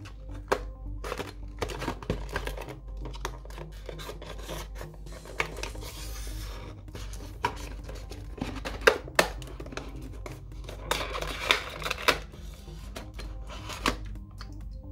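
Stiff clear plastic blister packaging being handled and cut open with a hobby knife: sharp crackles and clicks, with a longer scraping stretch about six seconds in and again around eleven to twelve seconds. Soft background music plays underneath.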